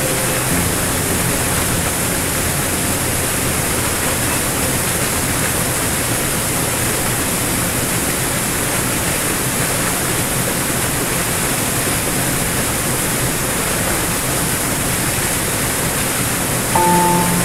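Small waterfall pouring over rock into a churning pool: a steady, full rushing of water. Near the end a piano chord comes in over it.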